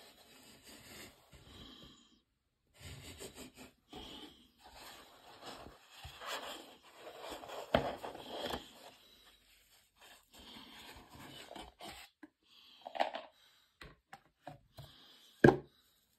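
Gloved hands handling a watch and its cardboard presentation box and fabric pillow: soft, irregular rustling and scraping, with a sharp knock about eight seconds in and another, the loudest, near the end.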